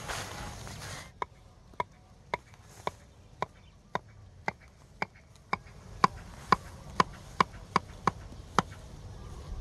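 A regular series of sharp, slightly ringing knocks, about two a second, louder in the second half and stopping near the end.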